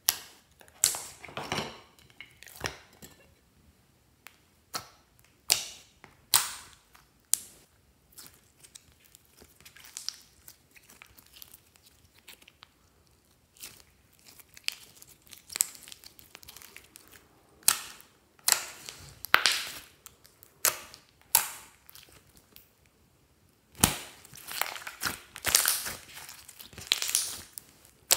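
Hands squeezing, poking and stretching clear slime mixed with green eyeshadow: irregular squishy pops and crackles, some sharp and loud, with short quiet gaps between, coming thickest near the end.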